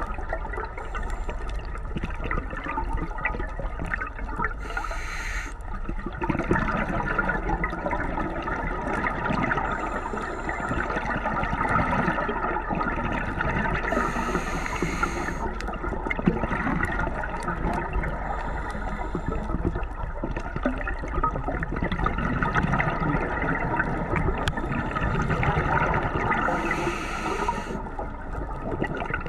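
Underwater reef sound heard through a camera's waterproof housing: a steady watery rush dotted with fine crackling ticks. Three times it is broken by a hissing burst of bubbles about a second long, typical of a scuba diver's exhaled breath.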